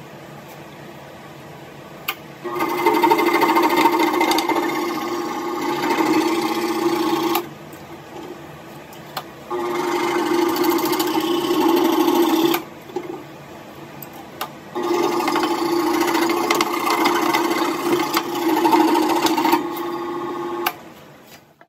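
Makita SJ401 scroll saw cutting a wooden board, its blade running up and down with a fast buzzing chatter. The cutting comes in three spells of a few seconds each, with quieter pauses between them.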